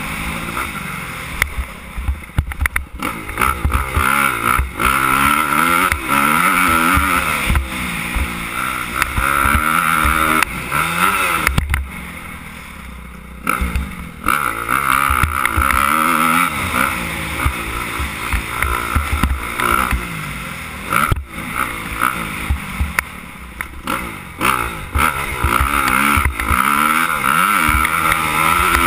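Suzuki 250 motocross bike engine revving hard and dropping back again and again as it is ridden through the gears around a dirt track, easing off briefly about halfway through, with wind buffeting the microphone.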